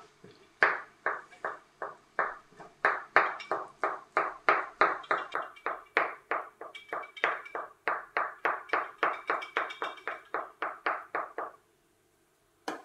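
Kitchen knife chopping boiled egg whites on a wooden cutting board: a steady run of sharp knocks, about three a second, that stops about a second before the end.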